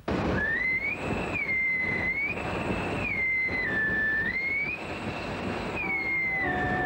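A high whistle tone slides up and down between a few held pitches over the rushing, rattling noise of a steam train on the move. Musical notes come in near the end.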